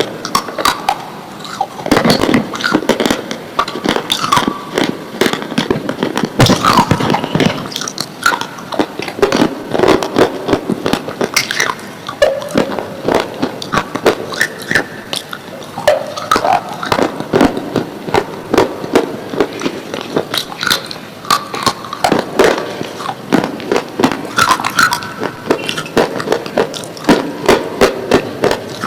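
Slate pencils being bitten and chewed close up: a dense, irregular run of sharp crunching clicks that goes on without a break.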